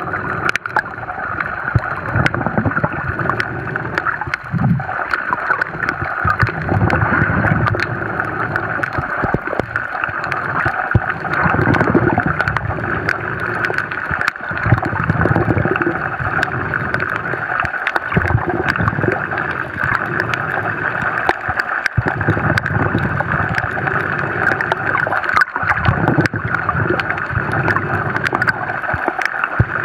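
Underwater sound heard through a camera housing: a diver's exhaled bubbles gurgling in low bursts every few seconds, over a steady hiss with scattered sharp clicks.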